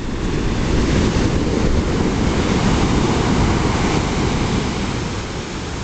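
Shore-break surf: a wave breaks and its whitewater rushes up the sand, a loud, steady wash that swells at the start and eases off near the end, with wind on the microphone.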